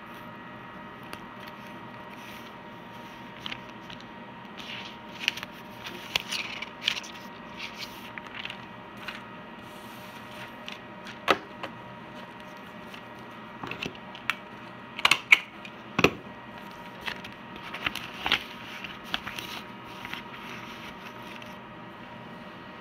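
Scattered clicks, taps and scratching noises over a steady background hiss and hum, with a few sharper knocks about halfway through.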